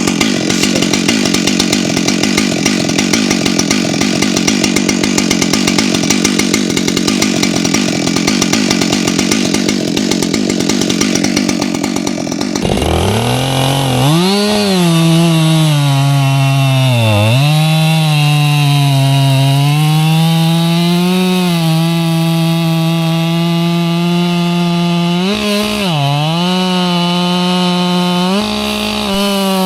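Two-stroke chainsaw running at full throttle while cutting into a stump. Early on the sound is a dense, grinding noise; partway through it changes abruptly to a clear high engine whine whose pitch dips and recovers several times as the chain loads and frees in the cut.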